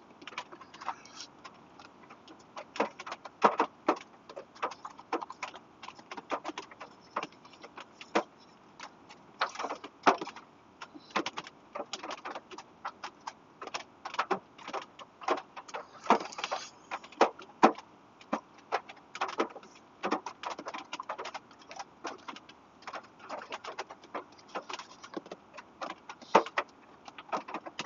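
A long-handled spoon clicking and scraping in a foil freeze-dried meal pouch as stew is scooped out and eaten, with crinkling of the pouch. The small sharp clicks come irregularly, several a second.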